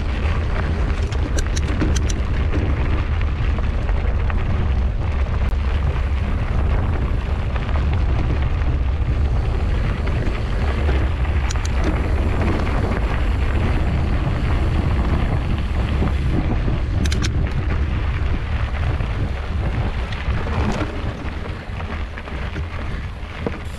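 Wind buffeting the microphone of a camera riding on a moving mountain bike: a steady, heavy low rumble, with a few brief clicks and rattles here and there.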